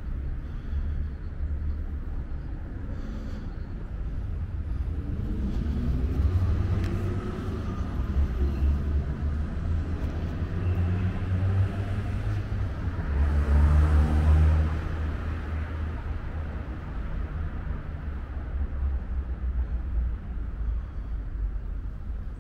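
Street traffic: cars driving past with a steady low rumble, one passing close and loudest about two-thirds of the way through.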